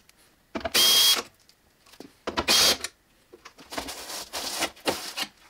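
Cordless drill-driver backing out the screws of a car door's window channels, in two short whirring runs with a thin whine, a little over half a second in and again about two and a half seconds in. Then a softer scraping and rustling as the window glass slides out of the door.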